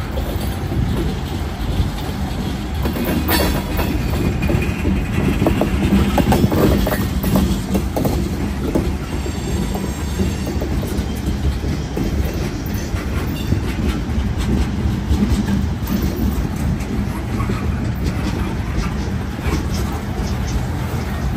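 Wheeling & Lake Erie freight train rolling past, its cars rumbling steadily with repeated clicking of wheels over the rail joints.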